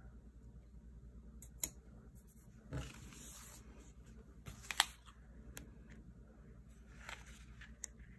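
Sticker sheets and planner paper being handled: a few scattered light clicks and a short paper rustle, the sharpest click about five seconds in.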